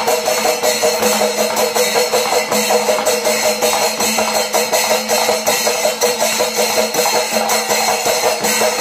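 Kerala chenda drums with hand cymbals playing the kalasam, the fast closing flourish of a temple percussion ensemble: a dense, fast, even beat over a steady held tone.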